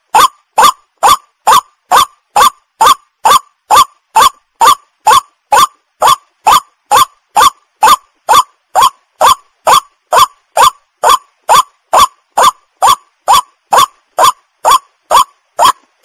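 White-breasted waterhen calling: a steady, unbroken series of short, loud notes, a little over two a second.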